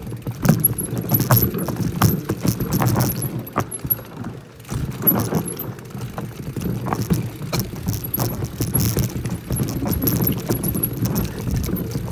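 Mountain bike riding down a rough dirt forest trail: chain and frame rattling and clattering over bumps above a steady rumble of tyres on dirt, easing briefly about four seconds in.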